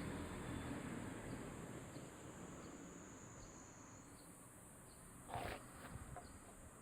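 Large brown cicadas (aburazemi) giving a steady, faint, high sizzling drone, with short bird chirps over it, one louder call about five and a half seconds in.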